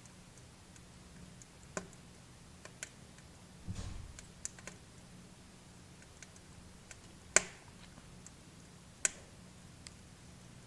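Wood fire in a fireplace crackling, with scattered sharp pops; the two loudest come about seven and nine seconds in.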